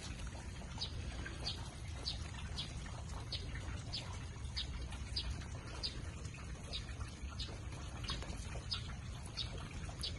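Rain falling, with a bird repeating a short high chirp over and over, about every half second.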